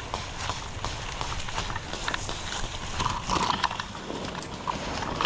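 Footsteps of a player moving on foot, an irregular run of crunching steps and knocks with gear rattling.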